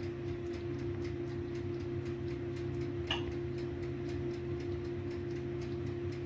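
Even, rapid ticking, several ticks a second, over a steady low hum and a held tone, with a short rising chirp about three seconds in.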